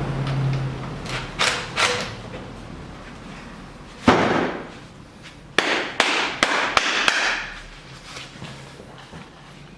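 A series of sharp knocks and clatters of hard objects, the loudest about four seconds in and several quick ones in a cluster a couple of seconds later, with a low steady hum that dies away in the first second.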